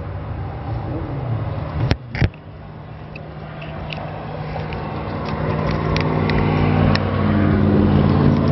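A vehicle engine running steadily, growing louder over the second half, with two sharp knocks about two seconds in.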